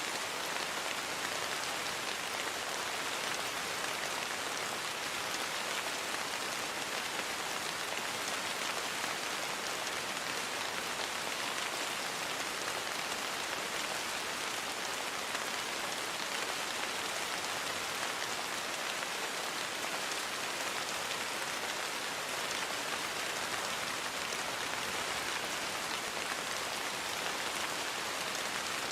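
Steady rain falling, an even hiss of countless drops with no breaks or thunder claps.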